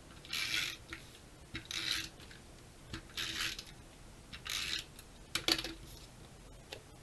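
Five short scratchy strokes of something rubbing or sliding across card stock, about one every second and a bit, with a couple of sharp clicks near the end.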